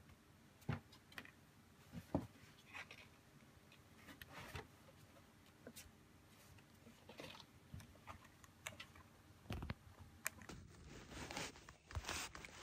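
Kittens scuffling in and against a cardboard box: irregular light thumps, scratches and cardboard rustles.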